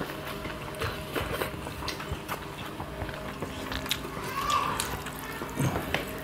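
Eating sounds: chewing, and fingers mixing rice and fish curry on metal plates, a scatter of soft clicks and wet smacks.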